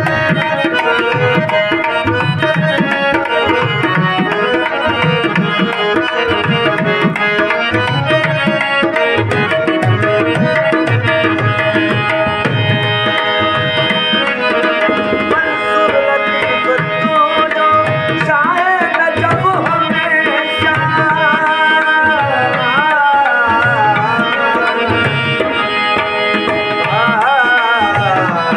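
Harmonium playing a held, droning melody over a steady beat on a dholak hand drum. Past the middle, and again near the end, a man's voice sings long wavering, ornamented lines over it.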